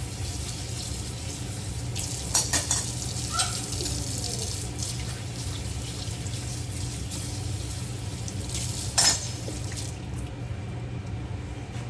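Kitchen work: pots, dishes and utensils clinking a few times, sharpest about two and a half, three and a half and nine seconds in, over a steady hiss and low hum. The hiss thins near the end.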